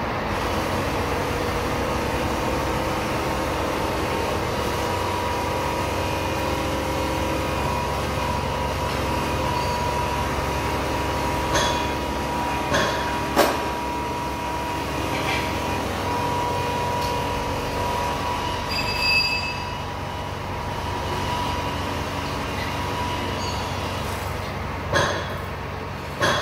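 Steady workshop machine hum with a constant high whine. Sharp metallic clanks come at intervals in the second half, from tools and parts being handled on a Scania 124 diesel engine during its teardown.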